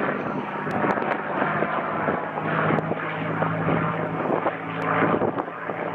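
Propeller airplane's piston engine droning steadily overhead, its pitch dropping a little over two seconds in.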